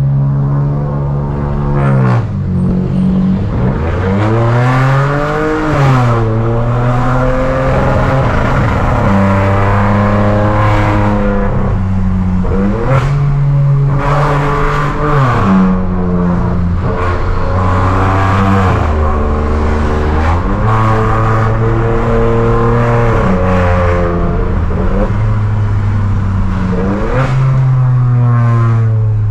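Exhaust note of a VW Virtus 1.0 TSI three-cylinder turbo engine through a stainless downpipe and a muffler-less Y catback with dual tailpipes. It runs loud, holding steady for stretches and repeatedly climbing and dropping back in pitch as the engine speed changes.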